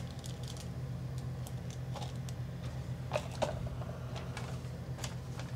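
Handling noise from a cardboard outlet box being opened and a small plastic bag of screws being taken out: scattered soft rustles and clicks, with a couple of sharper knocks a little past three seconds in, over a steady low hum.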